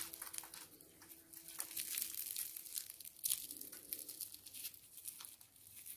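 Crisp, flaky baked yufka pastry of a cheese börek crackling and shattering as it is torn apart by hand: a run of small sharp crackles.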